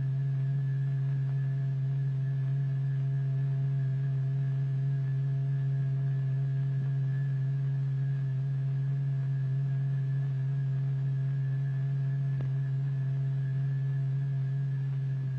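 Steady low pure tone with a few faint overtones, unchanging in pitch and level: the sine tone setting the membrane vibrating in a cymatics experiment.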